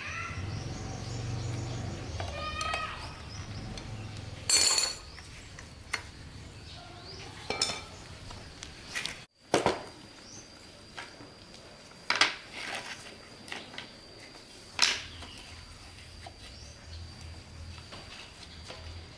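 Metal tools and parts clinking and knocking: a handful of separate sharp clinks several seconds apart, with a faint steady high whine from about halfway through.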